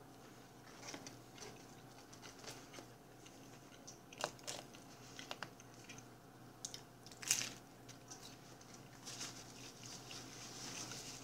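Biting into and chewing crispy breaded fried chicken: scattered faint crunches, the loudest two about four and seven seconds in.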